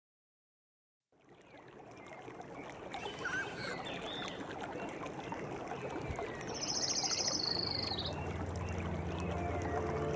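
A nature soundscape of running water and chirping birds fades in after about a second of silence, with a high trill near the middle. A low sustained keyboard drone comes in over it about eight seconds in, opening a song's intro.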